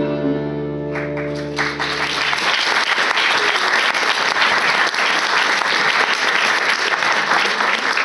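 The last held chord of a song's accompaniment dies away in the first couple of seconds as an audience breaks into applause, which goes on steadily through the rest.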